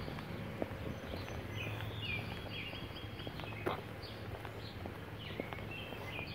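Footsteps on a concrete sidewalk while birds chirp in short repeated phrases, over a steady low hum.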